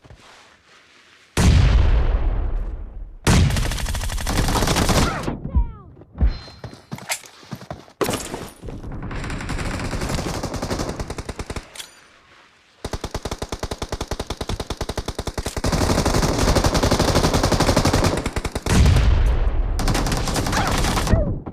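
Video game gunfire: bursts of automatic rifle fire, with a long run of rapid shots at about ten a second in the second half.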